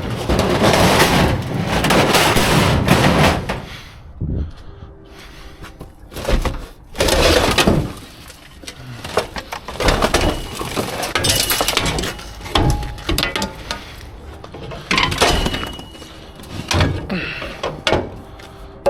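Scrap metal being handled and tossed in a dumpster: several loud crashes and clatters a few seconds apart, some with brief metallic ringing.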